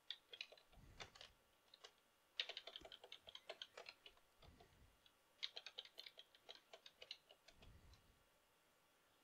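Computer keyboard typed on in three quick runs of key clicks, faint, with a few dull low thumps between the runs. The typing stops about a second before the end.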